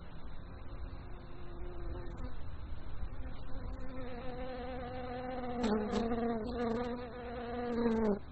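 A flying insect buzzing close by, as in a binaural 3D-sound demo. The steady buzz grows louder from about three seconds in, carries a couple of short clicks midway, and cuts off suddenly just before the end.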